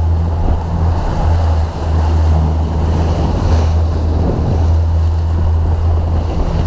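Boat underway with its engine giving a steady low hum, water rushing past the hull and wind buffeting the microphone.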